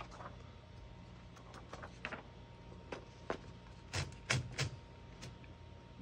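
Scattered clicks and knocks from a 1929 Corona Four portable typewriter as a sheet of paper is fed in and the platen knob turned. A cluster of louder knocks comes about four seconds in.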